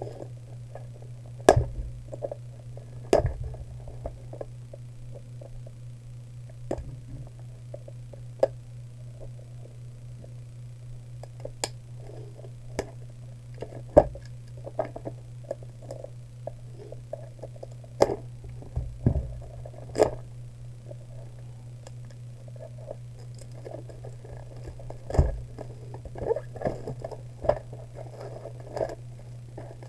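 Hands handling a cardboard trading-card booster box and its foil packs: soft rustling with scattered sharp taps and knocks, about ten of them standing out, over a steady low hum.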